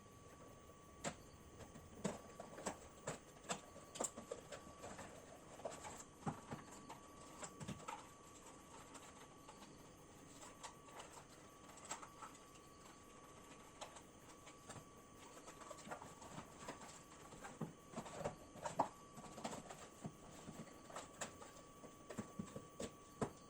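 Hands handling computer parts and their packaging: many light, irregular clicks and taps, with a faint steady high whine underneath.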